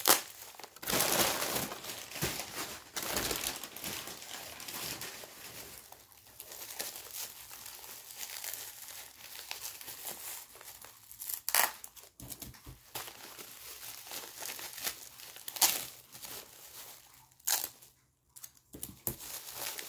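Plastic bubble wrap crinkling and crackling as it is pulled off drinking glasses, with several sharper rips and crackles, the loudest about a second in, twice in the second half and once near the end.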